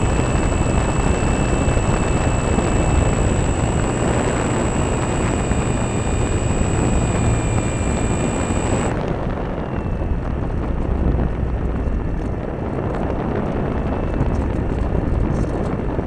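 Radio-controlled model airplane heard from its own onboard camera: loud wind rush over the microphone with a high motor whine, which cuts off suddenly about nine seconds in, leaving only wind noise as the plane comes down toward the field.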